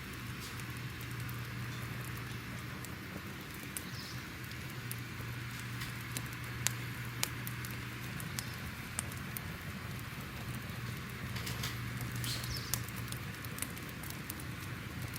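Crackling fire: a steady hiss under a low hum, with scattered sharp pops and snaps, a few louder ones about halfway and near the end.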